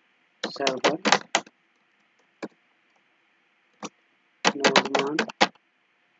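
Computer keyboard keystrokes: single sharp clicks about a second apart, between short spoken words, over a faint steady hiss.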